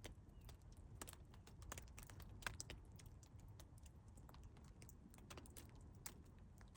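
Meltwater dripping: small, sharp, irregular drop ticks, about two a second, over a faint low rumble.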